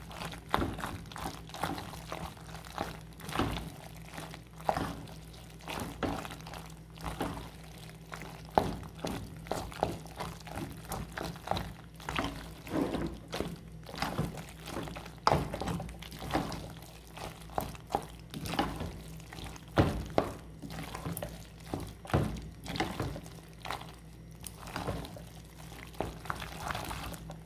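A spoon stirring thick, stringy macaroni and cheese in a pan: irregular wet squelches and soft knocks of the spoon against the pan, one to three a second, as the melted cheese sauce is folded through the pasta. A faint steady low hum sits underneath.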